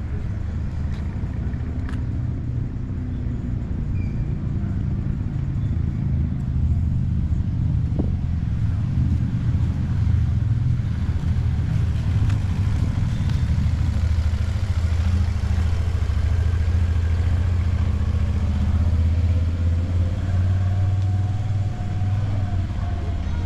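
City street traffic: a steady low rumble of passing cars, growing somewhat louder partway through.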